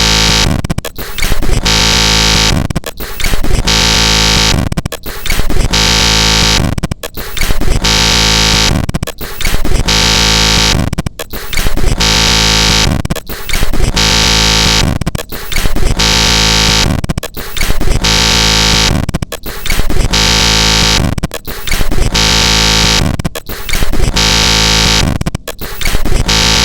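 Digital glitch sound effect played in a loop: the same loud, stuttering electronic noise of buzzing tones repeats about every two seconds.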